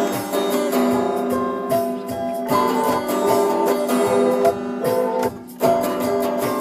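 Acoustic guitar music, plucked and strummed notes, with a short break about five seconds in.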